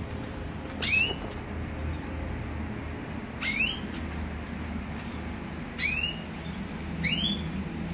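Canary giving short rising call notes, four in all, one every one to two and a half seconds.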